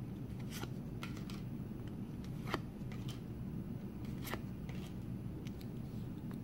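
Panini NBA Hoops basketball trading cards handled and flipped through by hand: soft, scattered clicks and slides of cardstock. The sharpest ticks come about two and a half seconds in and again a little past four seconds.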